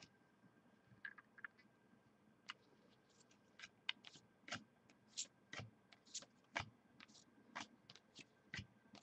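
Trading cards being handled and flipped through: faint, short clicks and light scrapes, a few at first, then a steady run of about two a second.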